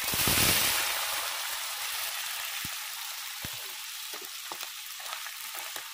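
Raw pork pieces dropped into hot oil in a karahi: a loud sizzle right away that is strongest in the first half-second, then settles into a steady frying hiss with scattered crackles and pops.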